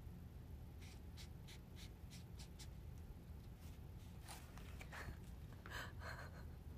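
Faint scratching of a pen drawing on sketchbook paper: a quick run of short strokes, followed near the end by a few softer handling sounds as the sketchbook is lifted.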